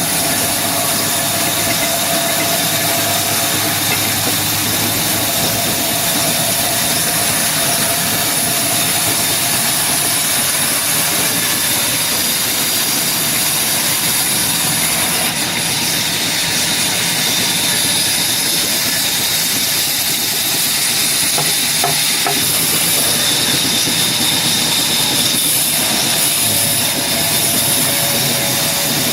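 Power saw cutting through a large piece of hardwood, running steadily with a loud hiss and a constant high whine.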